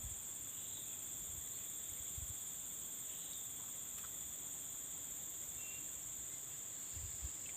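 Steady chorus of insects, a continuous high-pitched trilling that holds unchanged, with a few faint low bumps.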